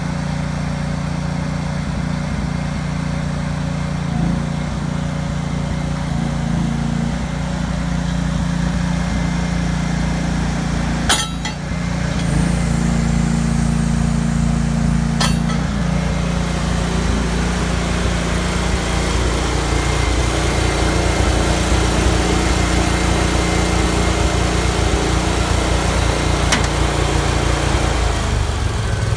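Honda V-twin gasoline engine of a 2006 Allmand TLB 220 loader backhoe running steadily. There is a sharp click about eleven seconds in and another a few seconds later; the engine gets a little louder just after the first click and shifts in tone about two-thirds of the way through.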